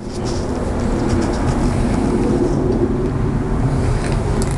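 A steady low mechanical rumble, like a running engine or traffic, with faint scattered clicks over it.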